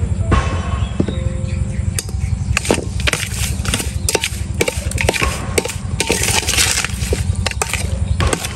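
A run of irregular sharp knocks and clatter with crackling, starting about two seconds in, over a steady low hum.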